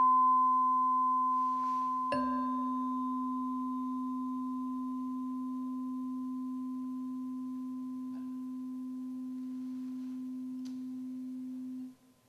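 Two tuning forks on wooden resonance boxes ringing together, a low C and a C two octaves above it, as two steady pure tones. The low fork is struck again about two seconds in with a short metallic ping. Both tones then ring on, slowly fading, until they cut off abruptly near the end.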